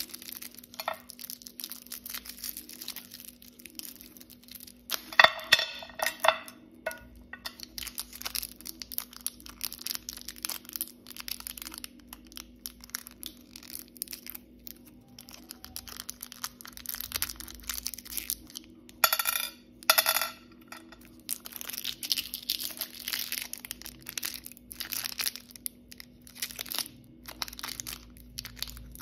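Plastic candy wrappers crinkling and tearing as a lollipop and twist-wrapped sweets are unwrapped by hand, with many small crackles and two louder rasping rips, about five and nineteen seconds in.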